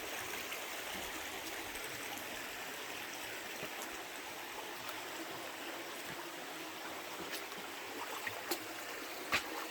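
Creek water running steadily over rocks, an even babbling rush, with a few brief clicks near the end.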